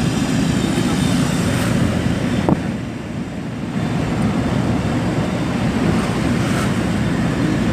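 Steady road and engine noise of a car driving at speed, heard from inside the cabin, with wind noise over the microphone. It dips slightly a little after the middle, with one short click.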